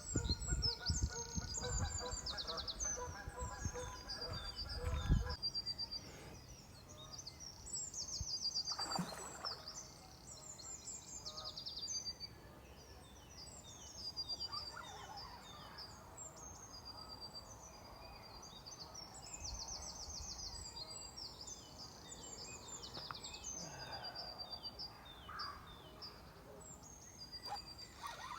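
Small songbirds singing and chirping, with quick high trills, throughout. During the first five seconds a steady pitched hum sounds over a low rumble.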